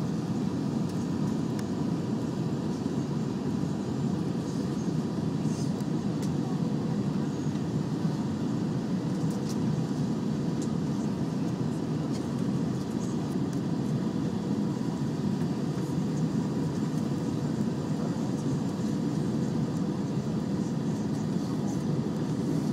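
Steady cabin noise inside an Airbus A320 descending on final approach: an even low rumble of engines and airflow with a faint steady whine, and a few light ticks.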